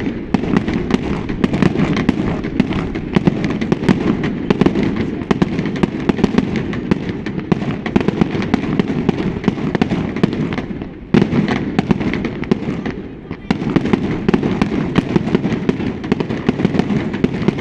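Fireworks display going off in a dense, continuous barrage of rapid bangs and crackling, with a deep rumble under it and two short lulls, about ten and thirteen seconds in.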